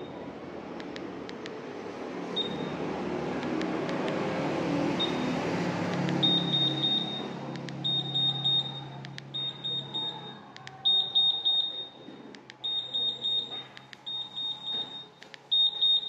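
Honda Scoopy 2022 smart-key answer-back buzzer beeping high while its volume level is being set from the key fob: three single beeps, then repeated short bursts of rapid beeps. Sharp clicks of the fob buttons come in between.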